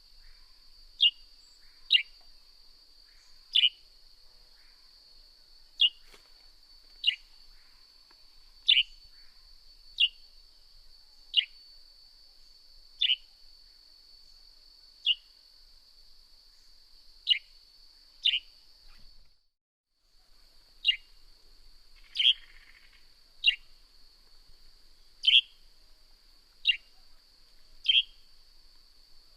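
Northern grey-headed sparrow calling: short, sharp chirps that drop steeply in pitch, repeated about every one to two seconds. Under them runs a steady, high-pitched insect drone, which cuts out for about a second a little past the middle.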